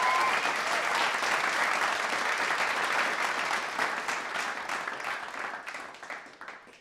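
Theatre audience applauding: dense, steady clapping from a large crowd that fades away over the last few seconds.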